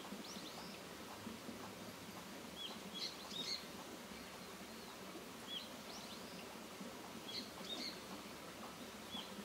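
Small birds chirping, short high calls coming in little clusters every two to three seconds, faint over a steady background hiss.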